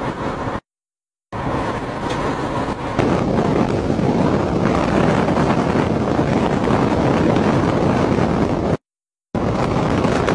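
Strong storm wind buffeting the microphone: a heavy, steady rush that grows louder about three seconds in. The sound drops out to silence twice, briefly, about half a second in and near the end.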